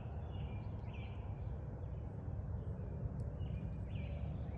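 Small birds chirping in short phrases, a few near the start and more about three and a half seconds in, over a steady low outdoor rumble.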